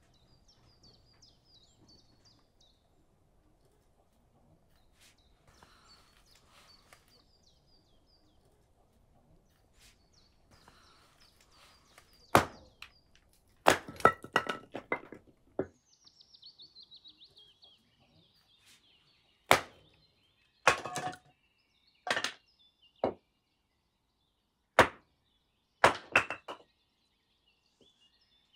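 A series of sharp chopping knocks, about a dozen, irregular: the first comes about twelve seconds in, and some come in quick clusters. Small birds chirp faintly in the background.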